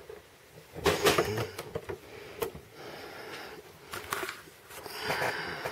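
Handling sounds: a cluster of clicks and knocks about a second in and one sharp click about two and a half seconds in, then rustling and breath noise as the camera is moved.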